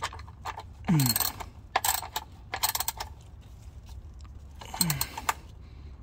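Ratchet wrench clicking in four short bursts as it snugs a threaded oil drain plug back in.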